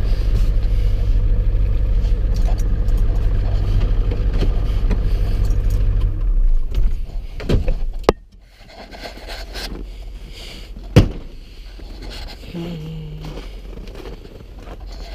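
The Ford 7.3 Power Stroke diesel of an old OBS Ford pickup idles steadily, heard from inside the cab, then is switched off and stops abruptly about six seconds in. A few clunks follow, then a single sharp bang about eleven seconds in, the loudest sound.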